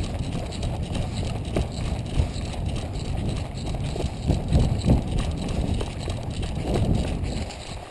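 Running footsteps on a dirt-and-grass track, an uneven series of thuds, over a low rumble of the body-worn camera being jostled.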